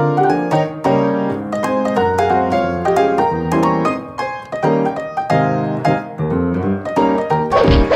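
Background piano music playing a brisk tune of short, quickly changing notes, with a sudden hit-like sound effect sweeping into the bass just before the end.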